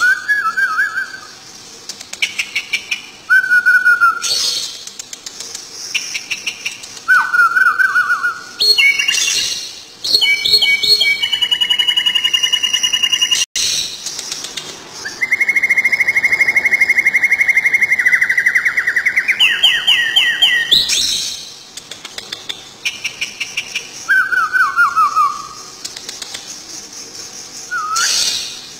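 Thick-knee (karawan) calling with loud whistles. Short falling whistles come every couple of seconds, and long trilled notes in the middle climb in a stepped run before the calls fall away again.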